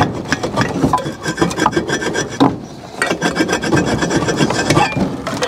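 Hand socket ratchet clicking rapidly in back-and-forth strokes as it turns a bolt into the wooden stand, with a short pause near the middle.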